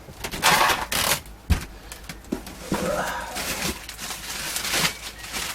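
Rummaging through a pile of cables and clutter in search of a mains lead: irregular bursts of rustling and clatter, with a sharp knock about one and a half seconds in.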